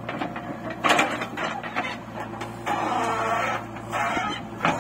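JCB 3DX backhoe loader's diesel engine running with a steady low hum under the clatter and scrape of its backhoe bucket digging into dry soil. Louder noisy bursts come about a second in and again around three seconds in, with a sharp knock near the end.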